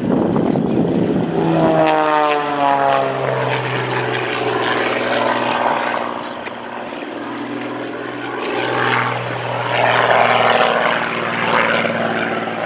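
Single-engine propeller stunt plane flying past: its engine note drops in pitch as it goes by about two seconds in, then drones on steadily and swells louder again later.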